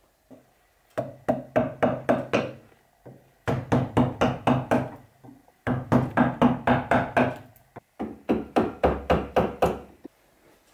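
A wooden mallet driving a steel gouge into a birch burl blank, in four runs of quick, even blows of about five a second, with short pauses between the runs.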